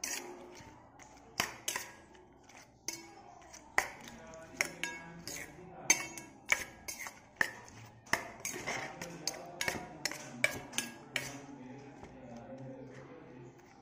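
Metal spoon clinking and scraping against a stainless steel bowl as thick yogurt raita is stirred: irregular clinks about one or two a second, stopping about eleven seconds in.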